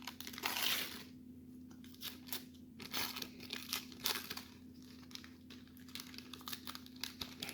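A Donruss baseball card wax pack's paper wrapper being torn open and crinkled, with short rustles and light clicks as the cards and puzzle pieces inside are handled.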